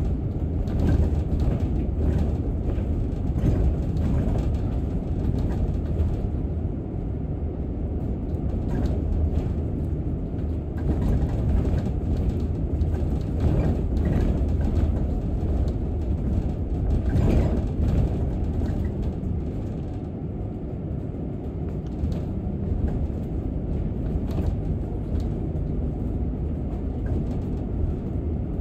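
Inside a moving London double-decker bus: steady engine and road rumble, with frequent small rattles and knocks from the bodywork and fittings.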